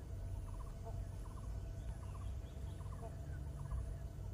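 Swamp ambience: a small animal's call in quick groups of about three notes, repeating every second or so over a low rumble.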